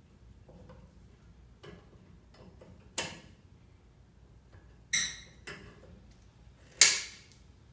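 Hand tools clinking against metal: a few faint ticks, then four sharp metallic clinks spread over a few seconds, one ringing briefly and the last the loudest.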